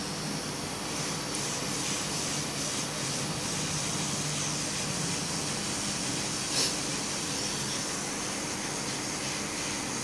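Hot-air rework gun blowing a steady rush of hot air onto a phone board's micro-USB charging connector, melting its solder so the connector can be lifted off. One brief louder blip about six and a half seconds in.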